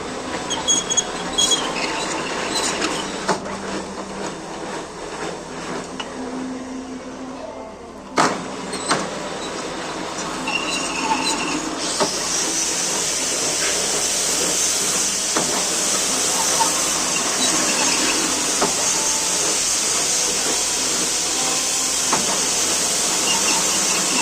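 Metal lathe workshop sounds: scattered clicks and metal knocks with a sharp knock about eight seconds in, then, from about halfway, steady machine running noise with a strong hiss.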